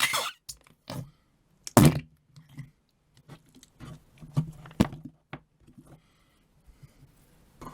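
Noise putty being worked and pressed in its pot: a series of short, sudden squelches and knocks. The loudest comes about two seconds in, and a cluster falls around five seconds.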